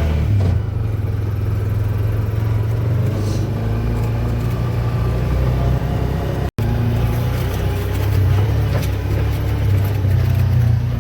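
A motor vehicle's engine running steadily with a low drone, dropping out for an instant just past halfway.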